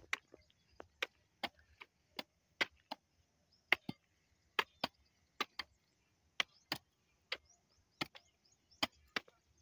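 Short-handled hand hoe chopping into dry, hard clods of soil: sharp strikes about twice a second in an uneven rhythm, some coming in quick pairs.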